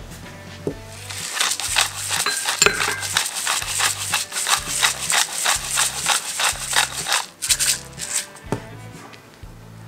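Wire whisk beating flour, butter and egg in a ceramic bowl: quick, regular strokes, about three or four a second, the wires scraping and tapping the bowl. The strokes stop about eight seconds in.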